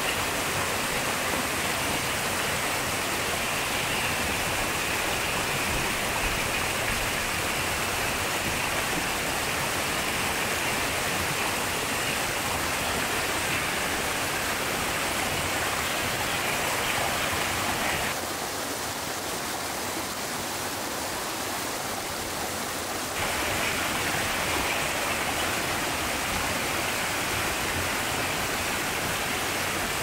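Water from small waterfalls and a mountain stream rushing steadily. About 18 seconds in the rushing turns a little quieter and duller for about five seconds, then comes back.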